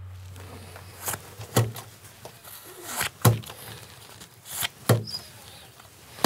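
Playing cards slapped down onto a rough wooden table: short sharp slaps, each with a low thud, coming in pairs about a second and a half apart.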